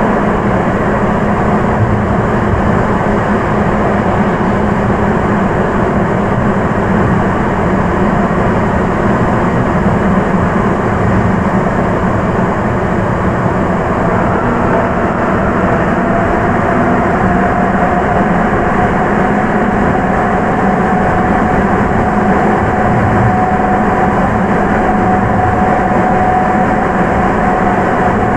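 Sapporo Municipal Subway 9000 series rubber-tyred train running underground, heard from inside the car: a steady, loud rolling rumble with a thin whine that rises a little in pitch about fifteen seconds in.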